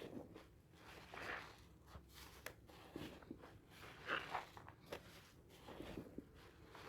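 Hard sea salt and charcoal soap bars being lathered, with faint wet squishing, small crackles and clicks of thick foam. There are louder swishes about a second in and again about four seconds in.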